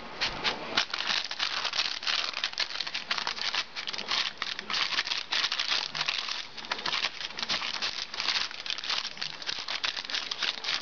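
Paper lining a baking sheet crinkling and rustling in a dense, irregular crackle as hands press biscuit dough flat on it.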